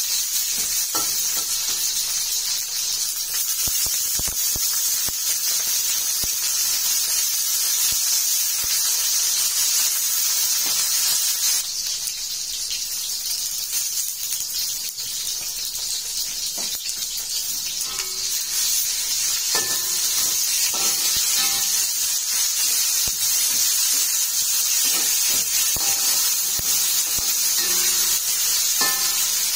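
Shallots, chillies and lemongrass frying in hot oil in a steel wok: a steady sizzling hiss, with the scrape and clink of a metal spatula stirring against the wok.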